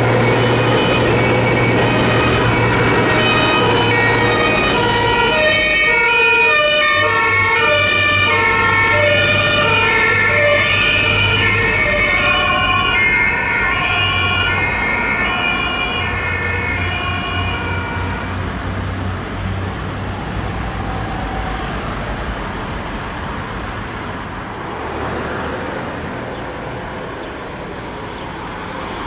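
German two-tone emergency sirens (Martinshorn) from several ambulances and emergency doctor cars, their alternating high-low notes overlapping out of step, over engine and road traffic noise. The sirens fade out about two-thirds of the way in, leaving passing traffic.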